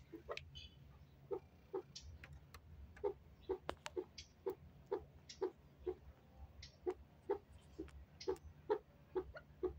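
Caged young chukar partridges calling: short clucking notes repeated about twice a second, with a few sharp clicks among them.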